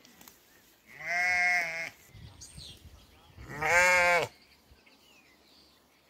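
A sheep bleating twice, each bleat about a second long; the second, about three and a half seconds in, is a little louder.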